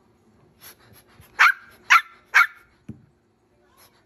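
Shih Tzu puppy giving three quick, high-pitched yaps about half a second apart, starting about a second and a half in, followed by a short dull thump.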